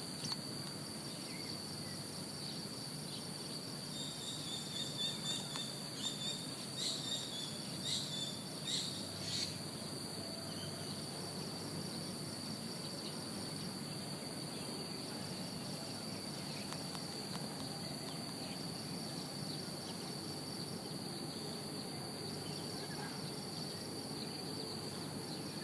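Steady high-pitched chorus of insects trilling without a break, with a run of short, repeated high chirps about 4 to 9 seconds in.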